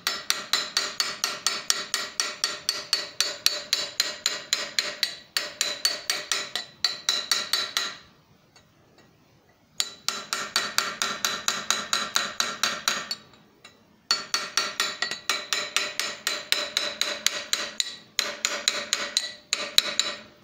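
Hammer tapping a small hand chisel on an anvil to cut the mouth line into a copper snake's head. The taps come about four a second, in runs of several seconds with short pauses between, and each strike rings metallically.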